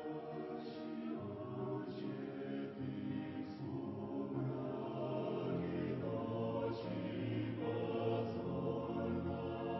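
Choir singing a Christian hymn slowly, in long held chords.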